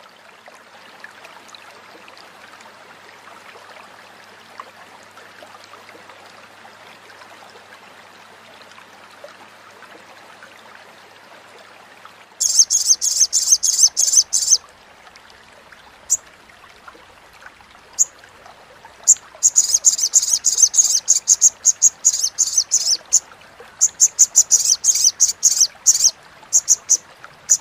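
A sogon (sogok ontong) sunbird's crecetan: bursts of very fast, high-pitched chattering, with a few single chips between them, starting about halfway through over a faint steady hiss.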